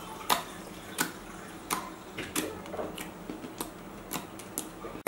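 Fingers pressing and poking into fluffy slime, sending out sharp pops and clicks as trapped air bursts, about eight of them at uneven intervals.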